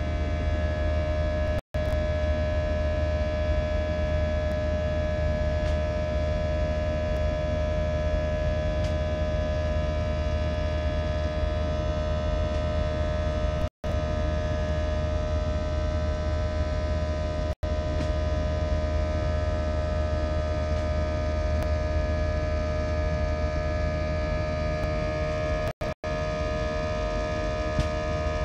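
Airbus A319 jet engines heard from inside the passenger cabin during the climb after takeoff: a steady, loud drone with a deep rumble and several steady whining tones over it. The uploader finds this A319 quite noisy compared with an A320. The sound cuts out for an instant about four times.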